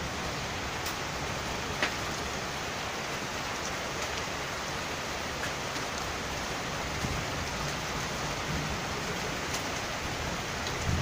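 Steady rain falling during a thunderstorm, an even hiss, with one sharp tick about two seconds in.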